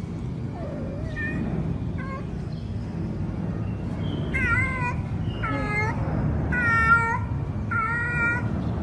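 Domestic cat meowing: a few faint short calls at first, then four louder meows about a second apart over the second half, the third the loudest.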